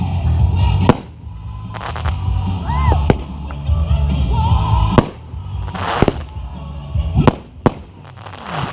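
Fireworks going off: about six sharp bangs a second or so apart, with hissing crackle bursts and a short whistle between them, over music with heavy bass.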